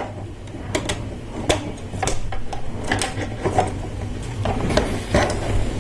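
Plastic Lego Technic parts being handled and fitted together: scattered small clicks and taps at an uneven pace.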